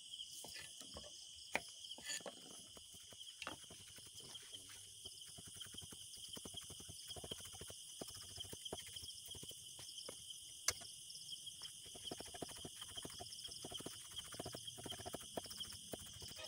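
Kitchen knife slicing bitter gourd (ampalaya) on a thick round wooden chopping block: a run of quick knife taps on the wood, sparse at first and coming fast and steady through the second half. Crickets chirp steadily behind.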